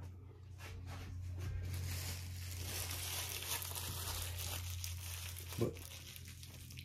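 Crinkling of plastic packaging or film being handled, building up and fading over a few seconds, with a short knock near the end. A steady low hum runs underneath.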